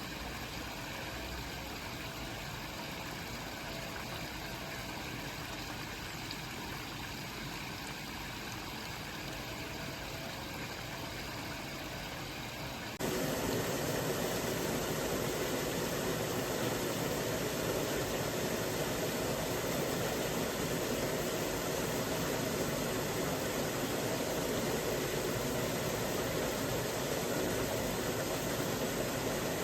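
Great Langdale Beck, a rocky stream, rushing and splashing in a steady flow. Partway through it suddenly becomes louder and fuller, then stays steady.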